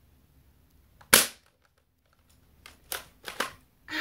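An ASG Spas-12 airsoft pump shotgun fires once with a single loud, sharp crack about a second in. A few lighter mechanical clacks follow about two seconds later, as the pump is racked for the next shot.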